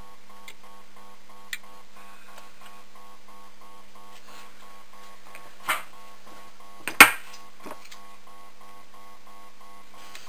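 Steady electrical hum from workbench rework equipment, pulsing evenly about three times a second. A few sharp clicks from off-camera handling come over it, the loudest a knock about seven seconds in.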